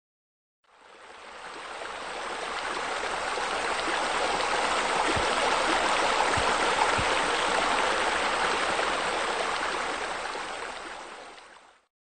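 Water pouring from a rock waterfall into a pool: a steady rush of falling water that fades in over the first few seconds and fades out near the end.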